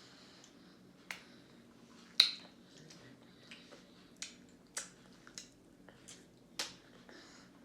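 Babies eating finger food make irregular sharp clicks and taps, about eight, with the loudest about two seconds in.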